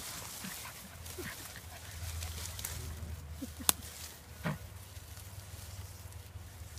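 Briard puppies at play, giving a few short, soft puppy sounds. A single sharp click comes a little past halfway.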